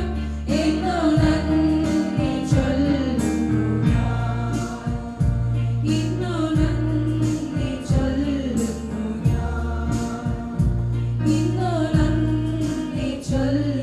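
A group of voices singing a Christian hymn over held bass notes and a steady beat.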